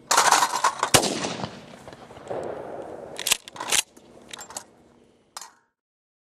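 Remington 870 12-gauge pump shotgun firing: a loud blast just after the start and another sharp crack about a second in, with ringing after. A pair of sharp clacks about half a second apart comes past three seconds in, then a few smaller clicks before the sound stops.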